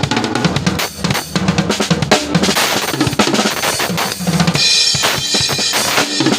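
Acoustic drum kit played rapidly, bass drum and snare struck in quick succession, with a bright ringing crash about three-quarters of the way through.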